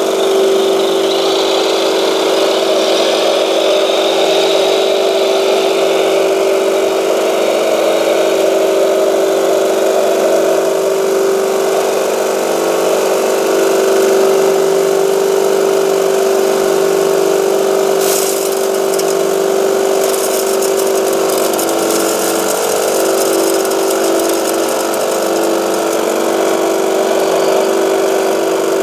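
Steady motor whine and hum from a radio-controlled Volvo L250G wheel loader and a model vibrating screen shaker. About two-thirds of the way in, gravel rattles as it is tipped from the loader bucket onto the screen.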